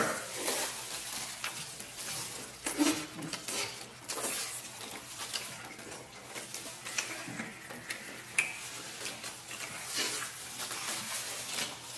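Close-miked eating sounds of people gnawing tender stewed beef rib meat off the bone: wet chewing and lip smacking, with irregular small clicks throughout.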